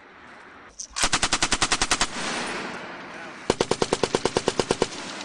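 M240 7.62 mm belt-fed machine gun firing two bursts of automatic fire, about ten shots a second: the first of about a dozen shots a second in, the second of a dozen or so a little past the middle, with the reports echoing off the range between them.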